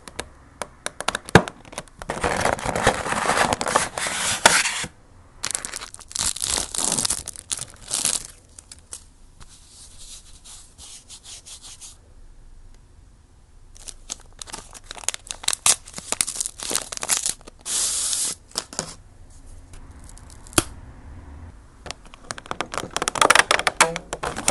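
Paper and cardboard packaging rustling, scraping and crinkling in several bursts as a bento box is slid out of its carton and unwrapped, with small clicks and taps in between.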